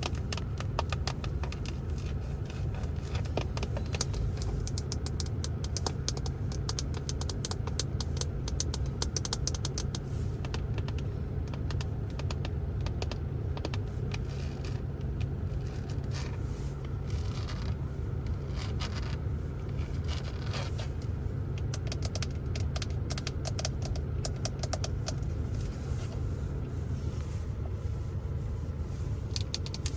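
Rapid ASMR tapping and scratching on the interior surfaces of a Ford Focus: dense quick clicks with scraping strokes, over a steady low rumble.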